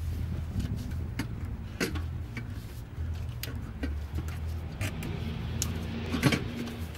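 Scattered light clicks and knocks of metal parts being handled and fitted in a car's underbody, over a low steady hum.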